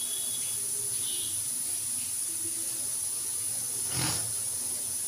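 Steady hiss of a lit gas stove burner heating a wok of oil, with a single light knock about four seconds in.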